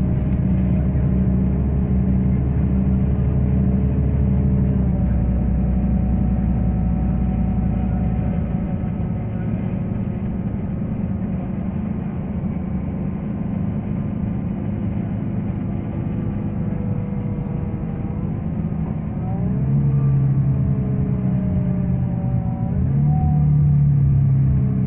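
Interior of a moving city bus: steady engine drone and road noise. The engine note drops about five seconds in, then climbs and grows louder twice near the end as the bus picks up speed.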